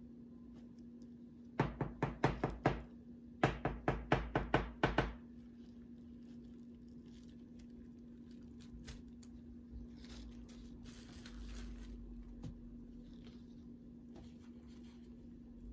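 Two quick runs of sharp taps, several a second: a knife chopping down through cake onto the cake board to make sure the cut goes all the way through.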